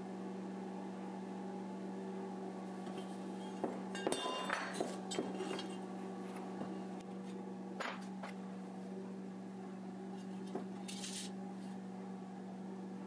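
A steel square-tube canister and coil springs handled on a metal workbench: a few light metal clinks and knocks, most of them around four to five seconds in and another near eight seconds, over a steady hum.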